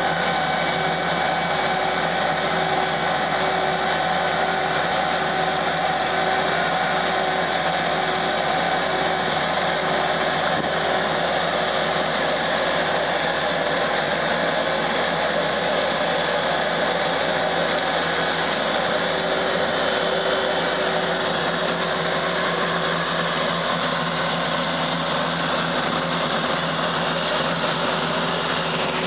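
An engine running steadily with an even drone and a few steady tones.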